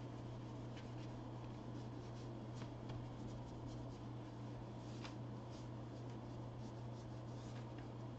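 Faint handling sounds on a workbench: light scratchy rubbing and small scattered ticks, over a steady low hum.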